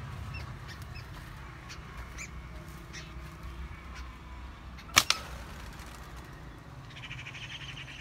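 A slingshot shot released about five seconds in: two sharp cracks in quick succession from the rubber bands snapping forward. Birds chirp faintly and briefly in the trees.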